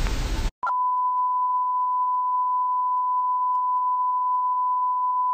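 Television static hiss for about half a second, cutting off suddenly, then a steady single-pitch test-pattern tone that holds unchanged, as a broadcast station's 'Please Stand By' test card.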